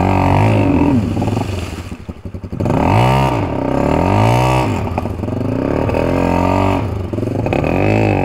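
Single-cylinder four-stroke dirt bike engine revving up and down in repeated throttle blips, with the revs dropping away briefly about two seconds in.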